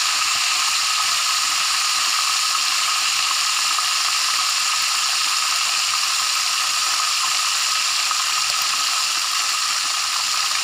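Whole turmeric-rubbed fish frying in hot oil in a wok, the oil sizzling with a steady hiss.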